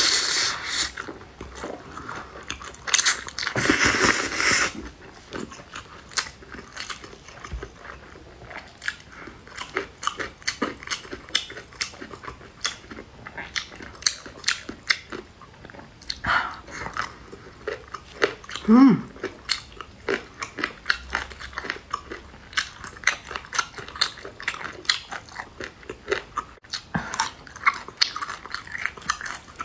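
Close-miked eating of spicy wide noodles and chicken feet: a steady run of wet chewing, biting and crunching, with a longer noisy slurp of noodles about three to five seconds in.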